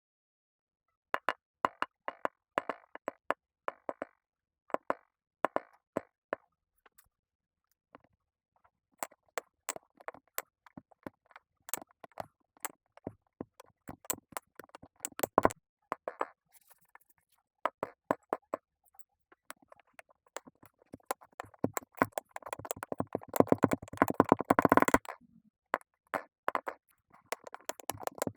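Kinetic sand crunching and crackling as it is cut and pressed: scattered short crisp clicks at first, becoming a dense, continuous crunching about two-thirds of the way through.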